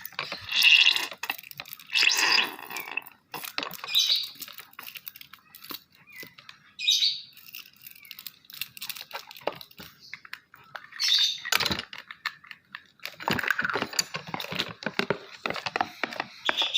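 Runny glue slime mixture being stirred in a container: uneven bursts of wet squishing and sticky clicking, with a dense run of quick clicks near the end. The mixture is still too thin, not yet set without activator.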